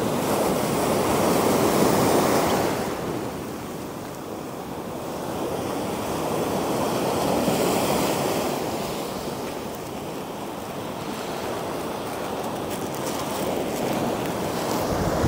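Small ocean waves breaking and washing up a sandy beach in the shallow surf. The wash swells louder about a second in and again around eight seconds in.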